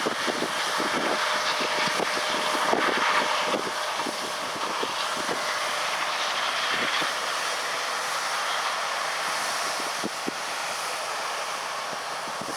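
John Deere S680 combine running steadily while harvesting corn, heard as a constant hiss at a distance, with irregular wind buffeting on the microphone.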